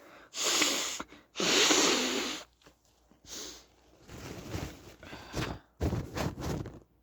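A person blowing their nose hard: two loud, long, hissing blasts of air, the second about a second long, followed by several shorter, quieter bursts.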